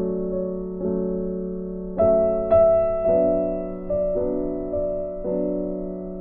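Background piano music: chords struck roughly once a second, each left to ring and fade.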